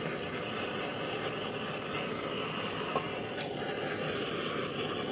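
Handheld propane torch burning with a steady hiss as its flame heats the hub of a harmonic balancer to expand it for fitting onto the crankshaft. One small click about three seconds in.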